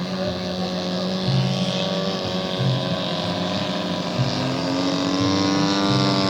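Small engines of radio-controlled model airplanes running steadily, several engine tones at once, with another engine tone joining and rising slightly in pitch about halfway through.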